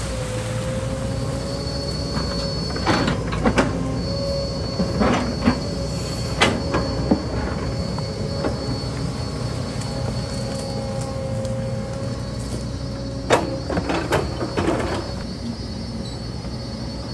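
Excavator working: its diesel engine runs steadily under a constant hydraulic whine, with sharp clanks and knocks every few seconds, grouped around three to seven seconds in and again near the end.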